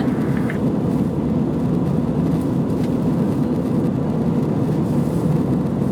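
Steady low rush of cabin noise inside an Airbus A320-214 airliner in flight, engine and airflow noise heard from a rear seat.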